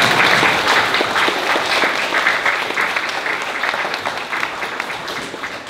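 An audience of schoolchildren applauding, loudest at first and slowly dying down.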